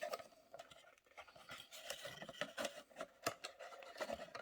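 Faint rustling, rubbing and small clicks of cardboard and plastic packaging being handled as it is opened.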